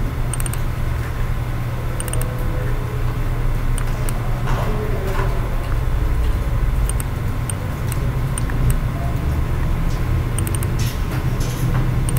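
Steady low hum with a background hiss, and short clicks of a computer mouse now and then, sometimes two or three in quick succession.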